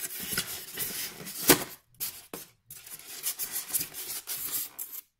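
Rustling and clattering of packaging and parts being handled while a new ATV winch kit is unpacked, with one sharp knock about a second and a half in.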